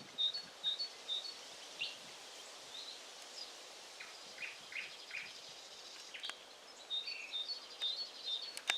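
Nightingale singing: a run of quick repeated high notes, then a few varied short phrases, then another run of repeated notes near the end.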